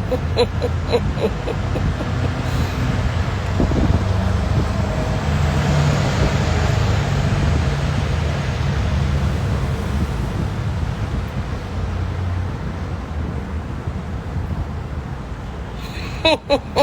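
Road traffic with a vehicle engine running close by: a steady low rumble that swells and fades in the middle, as a vehicle passes. Right at the start, and again just before the end, comes a quick run of short repeated pitched tones, about three to four a second.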